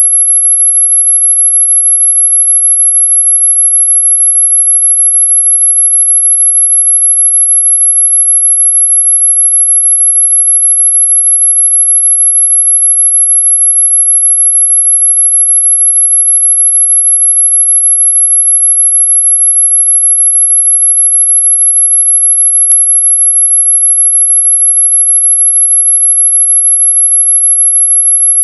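A single very high-pitched pure tone, steady and unchanging: a synthesised dog-whistle sound effect.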